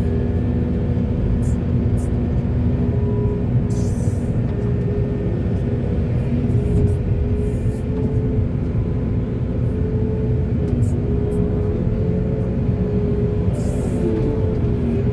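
Heavy diesel construction machinery running steadily: a deep engine drone that wavers slightly in pitch. Short hisses come about four seconds in and again near the end.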